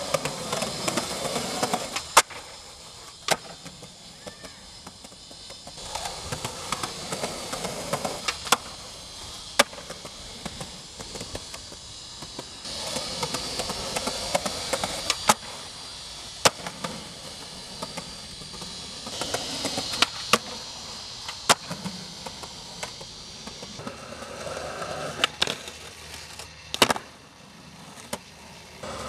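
Skateboard wheels rolling on concrete, broken again and again by sharp clacks of the board popping and landing on the pavement.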